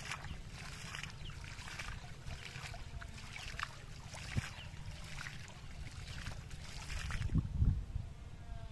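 Shallow pond water splashing as a hand repeatedly scoops and flings it, a string of quick splashes that stops about seven seconds in. A steady low rumble lies underneath, with a louder low surge near the end.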